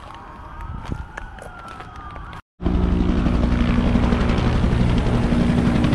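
An emergency-vehicle siren wailing slowly up and down in the distance for the first couple of seconds. After a sudden cut, a helicopter flies overhead, its rotor and engine running much louder and steadily.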